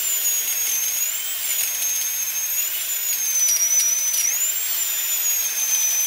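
A steady high-pitched whine that wavers slightly up and down in pitch, over a hiss.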